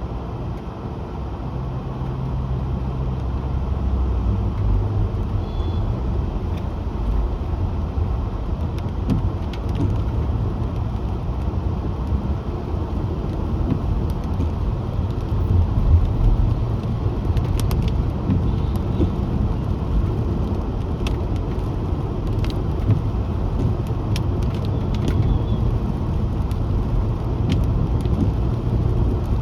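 Car driving on a city road: a steady low rumble of engine and tyre noise, with faint scattered ticks over it.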